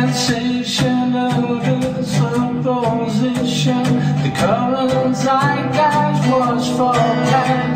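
Acoustic guitar strummed in a steady rhythm, chords ringing under a sustained melody line that slides up in pitch about halfway through.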